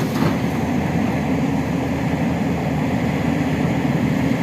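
Excavator diesel engine running steadily, a continuous low rumble.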